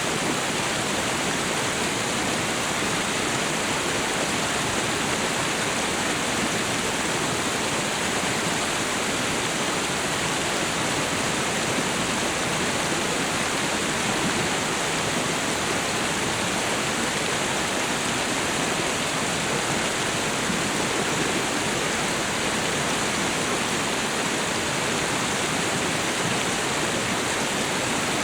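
Waterfall and river water rushing steadily, an even, unbroken hiss.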